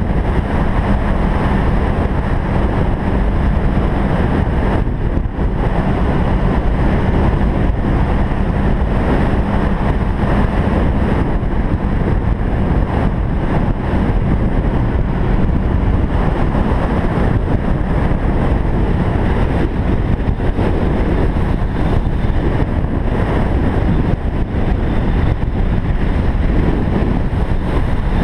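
2008 Kawasaki Ninja 500R's parallel-twin engine running at a steady cruise, heard through loud, steady wind rushing over the microphone of an open-backed camera housing.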